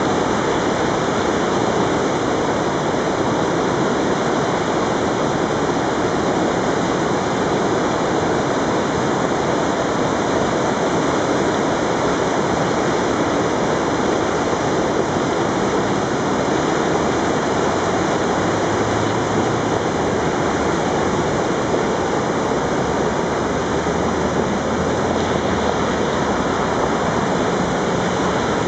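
A creek in full flood, risen to around seven feet, rushing as a loud, steady roar of fast, churning muddy whitewater over rocks.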